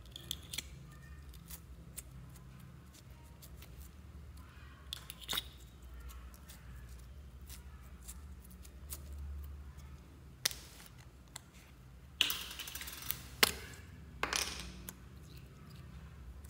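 Slime being scooped by hand out of a clear plastic compartment tray and dropped into a bowl of mixed slime: scattered small clicks and taps, with a few louder, longer squelches in the second half, over a low steady hum.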